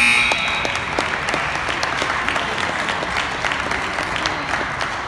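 Spectators clapping at the end of a wrestling bout. The scoreboard's end-of-period buzzer cuts off just after the start.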